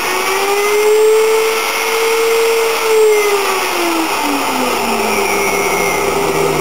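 CNC machine spindle motor running with a whine. Its pitch rises to a peak about two seconds in, then falls steadily as the speed dial is turned up and back down.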